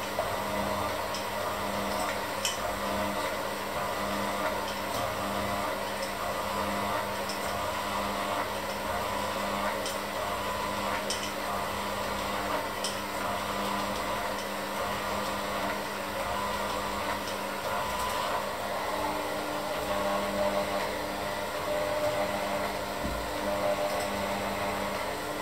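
Electric hand mixer running steadily, its beaters working a crumbly flour mixture in a stainless steel bowl, with a few sharp clicks along the way.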